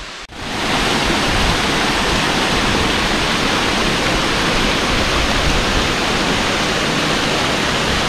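Cascata del Botto waterfall pouring into its pool: a loud, even rush of falling water that cuts in just after the start.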